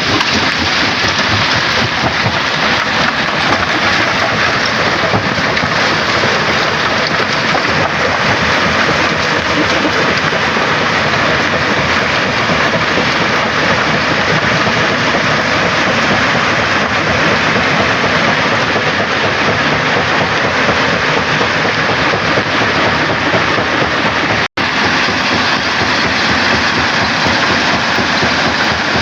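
Rock crusher running, with stone rattling and grinding through it in a loud, continuous clatter.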